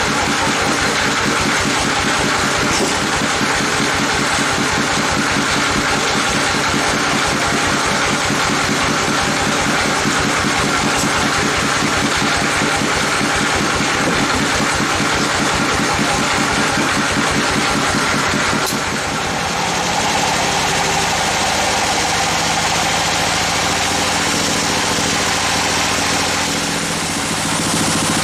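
Engine of a band sawmill running with an even, rhythmic beat. About two-thirds of the way through, the beat smooths out into a steady, higher hum.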